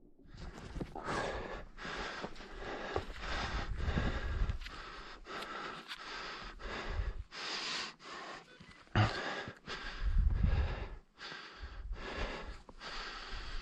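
Heavy breathing: repeated hard, panting breaths, about one or two a second, with some low rumble.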